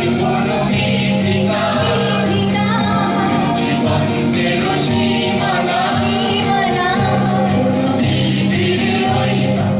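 A song being sung over instrumental accompaniment, with sustained bass notes and a steady percussion beat.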